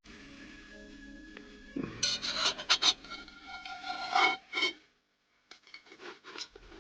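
A metal utensil scraping and rasping against a metal pan in a run of loud strokes with a ringing edge, as a cooked pizza is worked loose from its pan. Lighter scrapes and clicks follow a little later.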